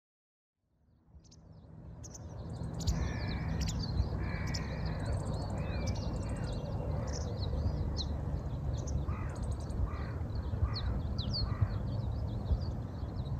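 Crows cawing at dawn, with small birds chirping high over a steady low rumble. The sound fades in over the first couple of seconds, and there is a quick run of four caws in the later part.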